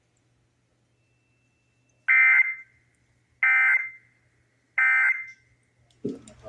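Emergency Alert System End-of-Message data bursts: three identical harsh, buzzy digital squawks about half a second each, a little over a second apart, closing the required monthly test.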